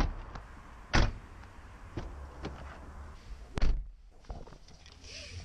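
Car doors of a Citroën C4 Cactus being shut: a series of thuds, the loudest at the start, about a second in and about three and a half seconds in, with lighter knocks between.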